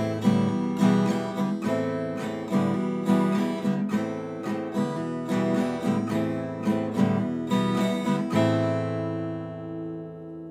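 Acoustic guitar strummed in a steady rhythm, alternating A minor and E minor chords as a song intro. About eight seconds in a last chord is left ringing until it cuts off.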